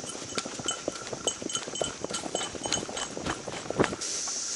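A horse walking along an overgrown trail: a steady patter of footfalls, tack knocks and brushing through plants, with a light metallic jingling throughout. About four seconds in the clatter stops and a steady hiss takes over.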